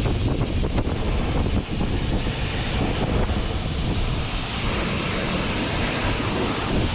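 High-pressure washer spraying water onto farm machinery: a steady, loud rush of spray.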